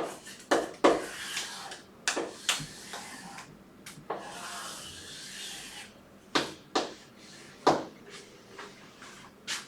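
Writing and drawing on a board: sharp taps of the pen or chalk against the board, with scratchy rubbing strokes, the longest about four seconds in and lasting a second and a half.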